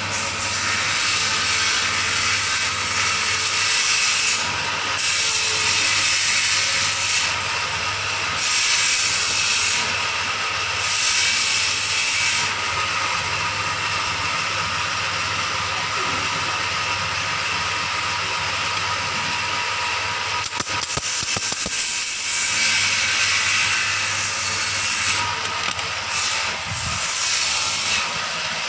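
Steady machine noise, a continuous rushing hiss over a low electric hum, with a few brief dips in the hiss.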